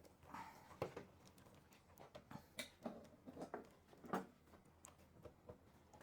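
Faint, scattered light clicks and knocks of kitchen utensils and bowls being handled on a counter.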